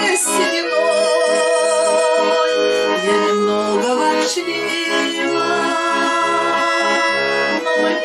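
Russian garmon (button accordion) playing an instrumental passage: a sustained melody in the right hand over a steady, repeating bass accompaniment.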